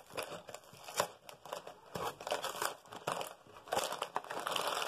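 Cardboard LEGO box being opened by pushing in its perforated tab and tearing the card: irregular crackling and tearing with small clicks, getting busier near the end.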